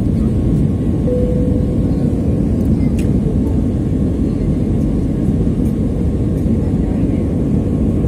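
Steady airliner cabin noise during the climb: an even low rumble of jet engines and airflow heard through the fuselage at a window seat. A brief steady tone sounds about a second in.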